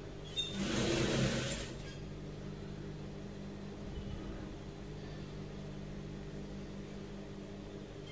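Steady electric hum. About half a second in, cloth rustles for a little over a second as the fabric is handled at the sewing machine.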